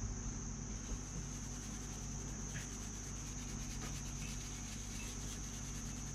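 A steady high-pitched whine or trill over a low hum, unchanging throughout, with faint scratchy touches from a cotton swab scrubbing a circuit board.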